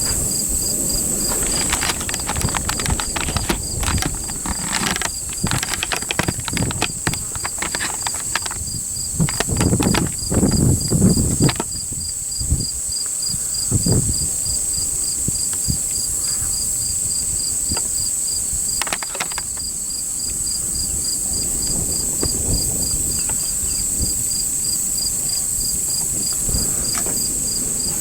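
Steady evening chorus of crickets and other insects: a continuous high trill with a fast, even pulsing chirp under it. Irregular knocks and rustles come through over the first dozen seconds, loudest about ten seconds in.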